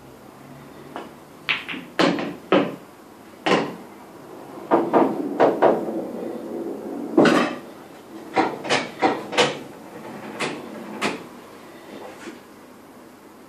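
Pool balls clacking: a dozen or so sharp knocks, some in quick runs, the loudest about seven seconds in.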